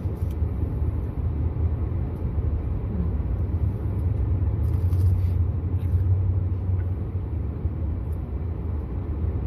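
Steady low rumble of a truck heard from inside its cabin, a little louder about halfway through, with a few faint brief rustles.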